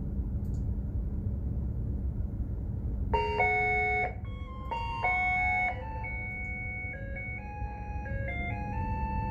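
Steady low rumble with a constant hum, the running noise of a container ship under way. Over it, an electronic chime sounds: a held chord about three seconds in, another about five seconds in, then a stepping tune of single notes.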